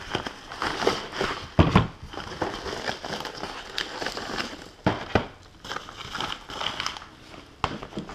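Rustling and crinkling of a foam packing bag as two small cardboard boxes are pulled out of it, with a few sharper knocks as the boxes are handled and set down on a table.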